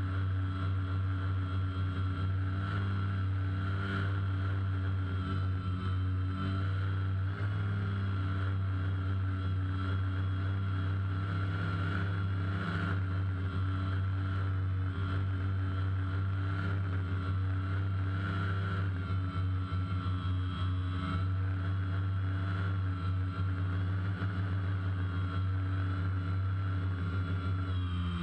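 DJI Phantom quadcopter's four electric motors and propellers whirring steadily in flight, heard from the GoPro mounted on the drone; the pitch wavers slightly as the motors adjust speed.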